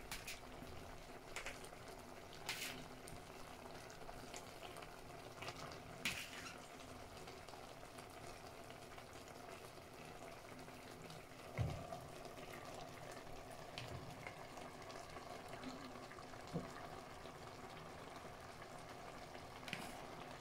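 Tomato seafood pasta sauce simmering softly in a clay pot over the flame, with a steady low bubbling and a few light clicks and soft knocks now and then.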